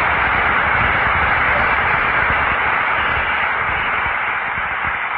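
Audience applauding in a steady wash of clapping that eases slightly near the end, heard through an old recording with the highs cut off.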